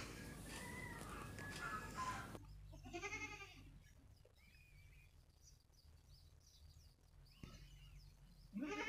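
A goat bleating twice: a short bleat about three seconds in and a louder one starting near the end.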